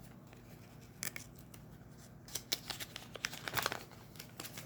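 Small Lego pieces and their plastic bags being handled: crinkling and light clicks. Mostly quiet at first with a single click about a second in, then a busier run of clicks and crinkles in the second half.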